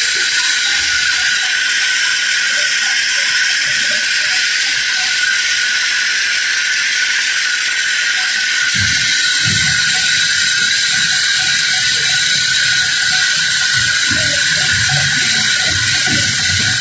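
Sawmill workshop machinery running with a loud, steady hiss and faint, scattered mechanical clicking.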